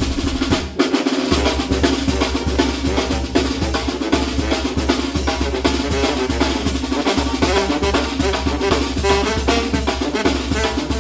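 Mexican banda brass band playing, with bass drum, snare and cymbals beating a dense, steady rhythm over the wind instruments and a strong bass line.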